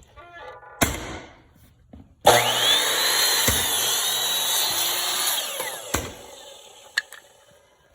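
A power saw starts suddenly about two seconds in and cuts for about three seconds, with a high whine over the cutting noise, presumably through a hardwood flooring board. The whine then falls away as the blade winds down. A sharp knock comes before the cut and a few knocks after.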